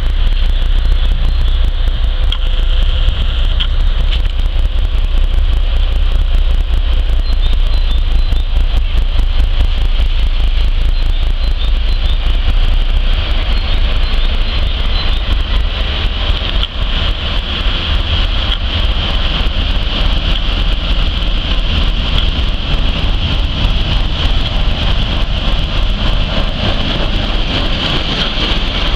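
S200 (ČKD T448P) diesel locomotive drawing near with its engine running under load, then passing close, followed by its train of freight wagons clattering over the rails. The noise is loud and steady throughout, with a heavy low rumble.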